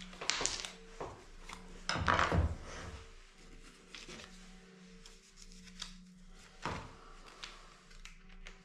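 A corded jigsaw being handled on a wooden workbench while a blade is changed: scattered clicks and knocks of the tool's body and blade clamp, with a heavier knock about two seconds in and another near seven seconds, over a faint steady hum.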